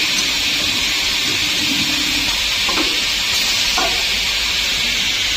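CNC drilling and milling machine running its machining program, giving a loud steady hiss with a faint low hum underneath.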